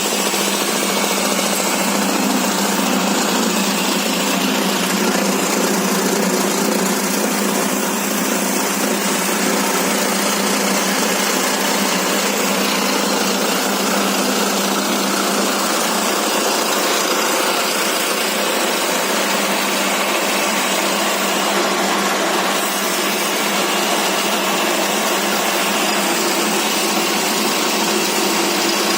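Diesel-driven animal-feed pellet mill running steadily, a loud, even mechanical noise from its engine and press.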